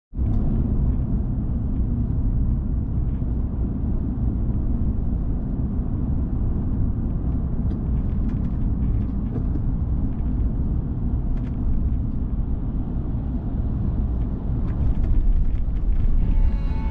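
Steady low rumble of a car driving on city streets, engine and tyre noise, with a few faint light ticks.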